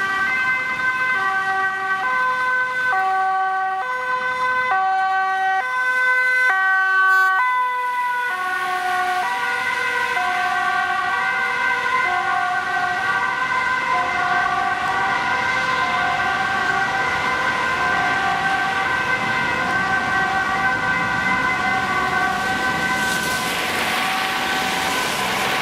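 Ambulance two-tone siren, alternating steadily between a high and a low note. About eight seconds in, its pitch drops as the ambulance passes and pulls away. Traffic and tyre noise on the wet road grows near the end.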